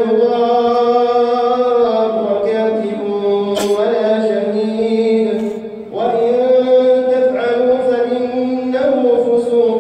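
A male imam reciting the Quran in a slow, melodic chant during taraweeh prayer, holding long phrases, with a short pause for breath about six seconds in.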